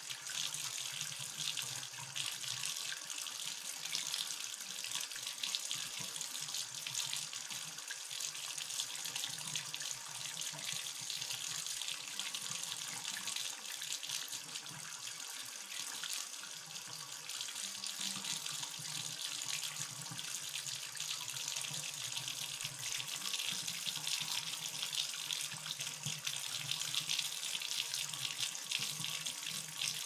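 Bathtub faucet running, water pouring out in a steady, unbroken stream.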